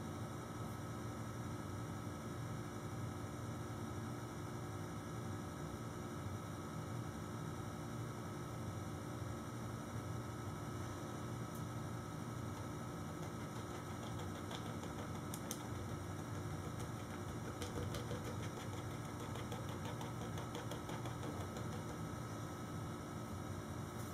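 Steady low electrical hum of room tone, with a few faint light ticks in the second half.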